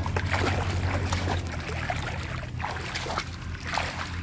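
Shallow muddy water splashing and sloshing irregularly as a fish is grabbed by hand in it, over a steady low motor-like hum.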